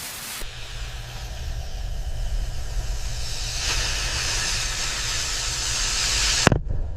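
Steady low rumble under a hiss that swells about three and a half seconds in, then a single sharp hit near the end as the hiss cuts off abruptly.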